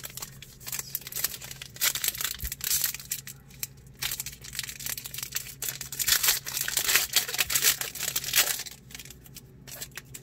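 Foil wrapper of a Donruss Elite football card pack torn open and crinkled in the hands, with irregular rustling and crackling. It is followed by the slick cards being slid and shuffled against each other.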